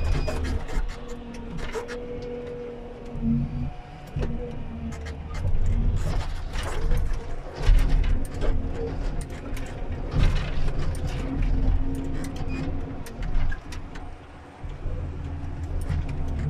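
Komatsu 931.1 harvester heard from inside its cab: the engine and hydraulics run with a steady hum, surging in load several times as the harvester head works a stem. Over this come many sharp cracks and snaps as branches are stripped and broken.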